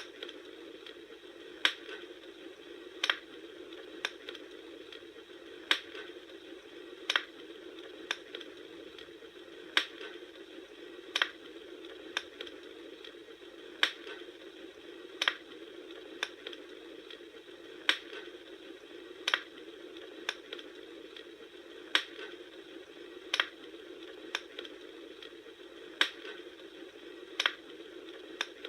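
Bonfire crackling: sharp pops about once a second over a steady hiss. The same group of three pops repeats about every four seconds, like a short recording played in a loop.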